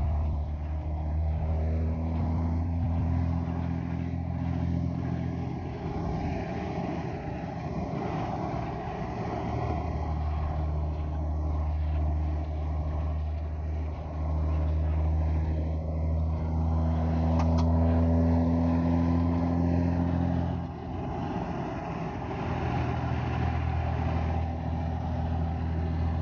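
Dodge Ram's Cummins turbo-diesel straight-six droning steadily while cruising, heard from inside the cab. The pitch eases and picks up again with the throttle, with a brief drop about three-quarters of the way through.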